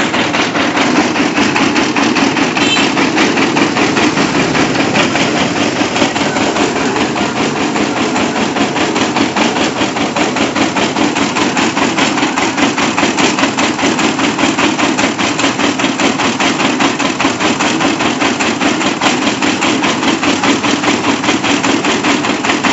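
Engine of a mobile rice-milling vehicle running steadily, with a rapid, even clatter.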